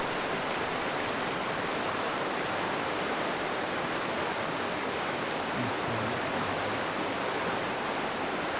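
Shallow, fast-flowing river rushing steadily over rocks and riffles: a constant, even rush of water.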